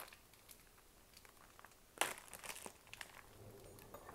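Reflective foil-bubble insulated food cozy and the plastic zip-top quart bag inside it crinkling softly as hands pull them open, with a louder crackle about two seconds in.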